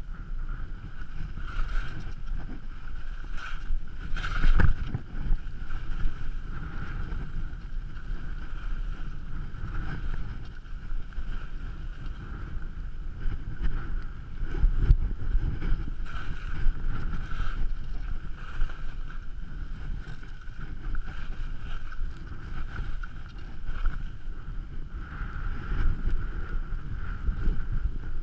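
Wind buffeting a GoPro camera's microphone, a steady low rumble, while skis slide and scrape over wind-packed snow, with a few sharp knocks in the first five seconds.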